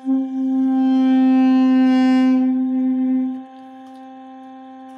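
Old B-key duduk, cracked along its body and chipped at the end, playing one long held note that starts right at the beginning and stops about three and a half seconds in. Under it runs a steady drone tone at the same pitch.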